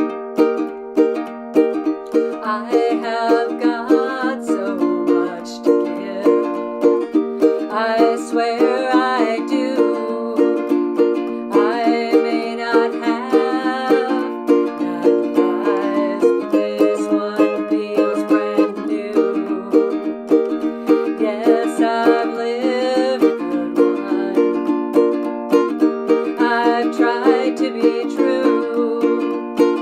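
Ukulele strummed in a steady, even rhythm, playing chords of a song.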